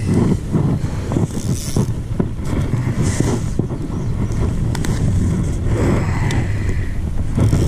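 Wind rumbling and buffeting on the microphone, with a few faint clicks and rustles.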